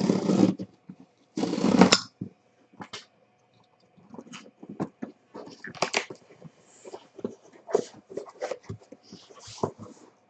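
Cardboard tear strip being ripped along a sealed trading-card box in long rasping pulls, the last about a second and a half in. Then come a string of short cardboard rustles, taps and clicks as the box is opened and its flap lifted.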